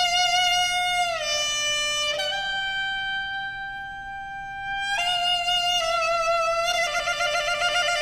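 Guanzi, a Chinese double-reed pipe, playing a slow solo melody. A note slides down about a second in, then comes a long steady held note, and near the end the notes take on a wide vibrato.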